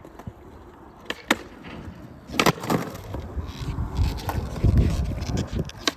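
Skateboard wheels rolling with a low rumble, with sharp clacks of the board hitting the ground, twice a little after one second in and more strongly around two and a half seconds in.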